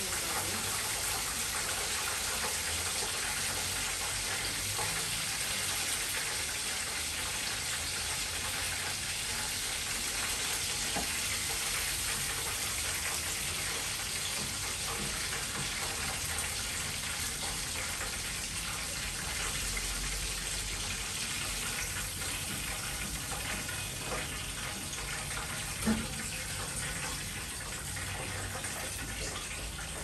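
Breaded chicken pieces frying in hot oil in a pot: a steady, even sizzle, with one light knock near the end.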